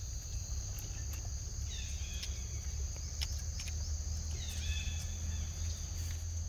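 Steady high-pitched insect drone, with a short call that slides downward, repeating about every two and a half seconds, over a low rumble.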